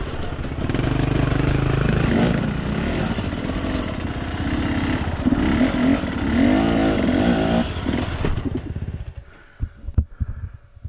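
Enduro dirt-bike engine being revved up and down in short throttle bursts while crawling over rocks, then falling away about nine seconds in, leaving a few sharp knocks.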